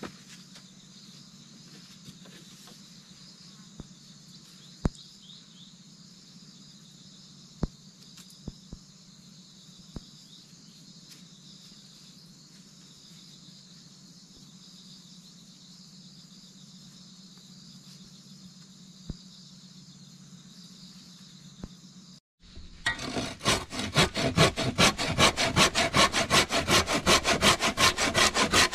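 Steady insect chirring with a few sharp clicks of wooden poles knocking while they are handled. After a short break about three-quarters of the way in, a hand saw starts cutting through a tree branch in rapid, even, loud back-and-forth strokes.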